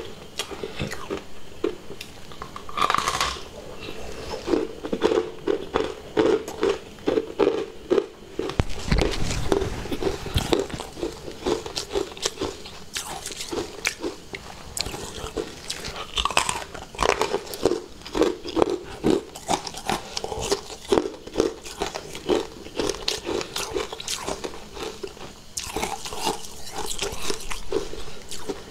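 A person biting and chewing chunks of frosty ice: many sharp crunches in quick, irregular succession.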